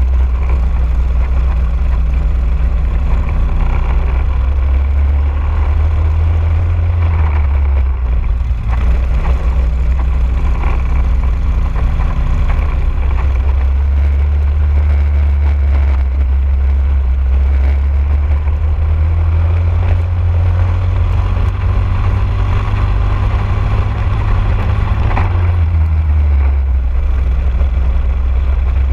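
Briggs & Stratton LO206 single-cylinder four-stroke kart engine running under racing load, heard on board. Its pitch rises and falls several times as the kart accelerates down straights and slows into corners.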